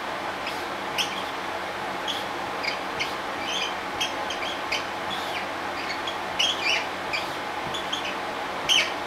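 Dry-erase marker squeaking on a whiteboard while writing: short, irregular high chirps with each stroke, the loudest pair near the end, over a steady hiss.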